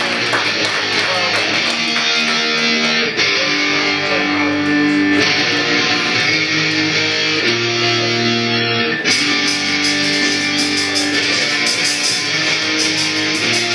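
Music with held chords that change every second or two.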